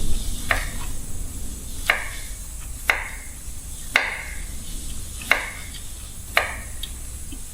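Kitchen knife chopping food on a cutting board: six separate chops, about one a second.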